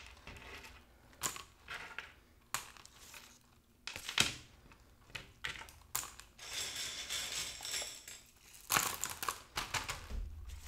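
LECA clay pebbles being picked up by hand and dropped into a small plastic plant pot: scattered light clicks and rattles, with a denser run of rattling about two thirds of the way through.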